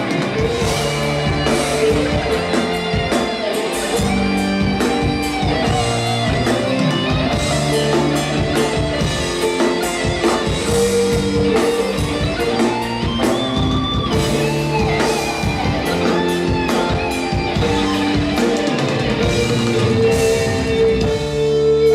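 Live rock band playing an instrumental passage: electric guitar lead with bending notes over bass and drum kit.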